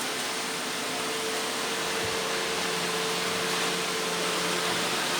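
Several robot vacuum cleaners running at once: a steady whir of suction fans and brushes with a constant hum under it.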